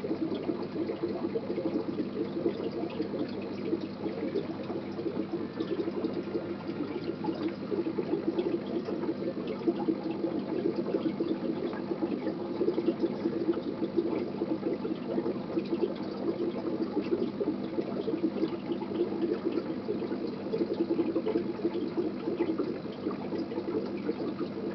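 Aquarium water bubbling and trickling steadily, a dense patter of small bubble pops over a constant splashing.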